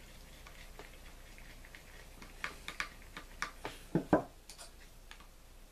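Small clicks and taps of a screwdriver and small metal parts being handled on a spincast reel. There is a quick run of clicks about two and a half seconds in, then two louder knocks about four seconds in.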